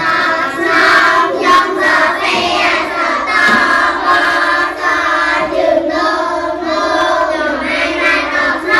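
A class of young children chanting aloud together in unison, many voices at once, loud and without a pause.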